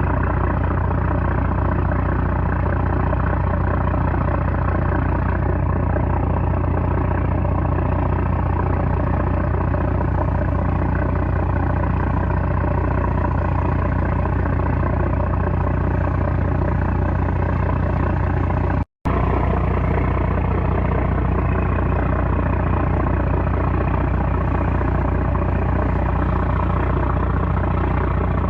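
Engine of a small 330-horsepower trawler running at a steady, loud drone with a strong low rumble. The sound cuts out for an instant about two-thirds of the way through, then carries on at a slightly different pitch.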